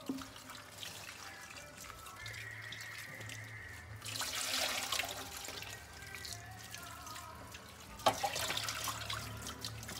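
Water running from a kitchen tap into a steel sink while a peeled bottle gourd and potatoes are rinsed on a steel plate. The splashing grows louder about four seconds in and again near the end, with a sharp clink of the plate just past eight seconds.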